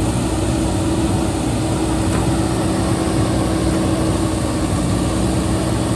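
JCB 3DX backhoe loader's diesel engine running steadily under working load as the backhoe arm digs and lifts a bucket of soil, with a steady held tone in the engine note.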